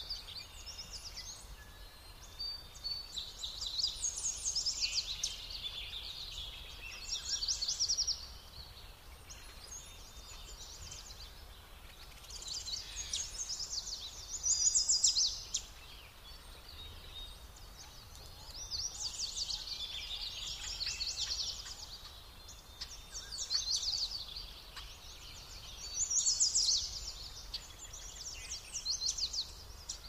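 Songbirds singing: short phrases of rapid, high chirps and trills, repeating every two to three seconds.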